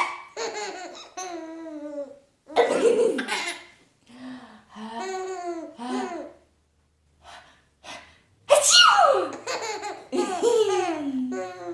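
A baby laughing in repeated bursts of giggles, set off by sneezes. Two loud sneezes come about a quarter of the way in and again about two-thirds of the way in.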